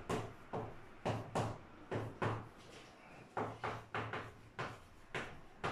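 Chalk writing on a chalkboard: a run of short taps and scrapes, about two or three strokes a second, with a brief pause about halfway through.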